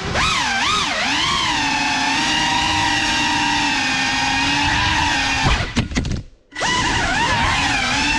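Whine of a GEPRC Cinelog 35 cinewhoop's brushless motors and ducted propellers, its pitch gliding up and down with the throttle, then holding steady. About six seconds in it briefly drops almost to silence, then comes back.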